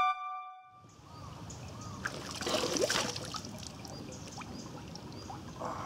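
Shallow rocky mountain stream trickling and splashing, with hands scooping water and splashing it onto a face. A short music ending fades out at the very start.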